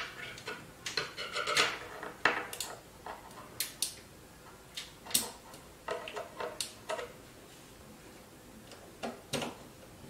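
Scattered clicks and light metal knocks of screws and a screwdriver against a desktop PC's steel case as the power supply is screwed back into place, with a quieter pause near the end.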